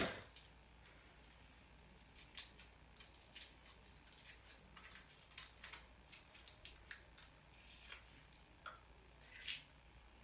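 Faint, scattered small clicks from hands handling a small object, with a slightly louder cluster of clicks near the end.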